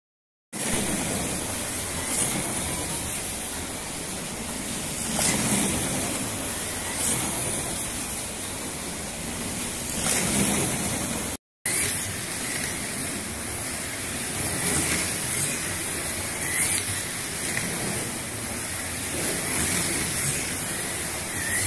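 NSR Porsche 997 GT3 slot cars lapping a multi-lane slot car track: a dense whirring hiss of small electric motors and tyres on the track surface, swelling every few seconds as cars pass close. The sound breaks off briefly about halfway through.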